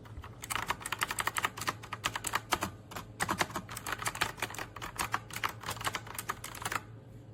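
Fast typing on an AULA F2088 typewriter-style mechanical keyboard with blue switches: a quick, continuous run of sharp key clicks that stops shortly before the end.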